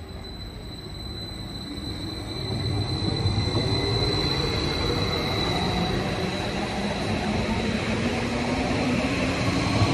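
Stadler FLIRT electric multiple unit passing close by: rumble of wheels on the rails with motor hum, growing louder about two to three seconds in and staying loud as it goes past. A steady high whine runs through it.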